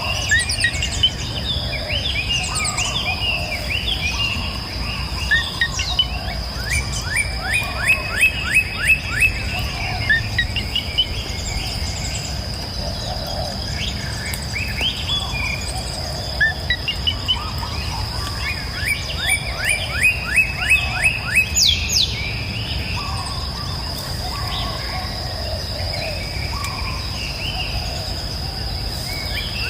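Tropical forest ambience: many birds calling over a steady, high insect drone. Twice a bird gives a fast run of repeated rising notes.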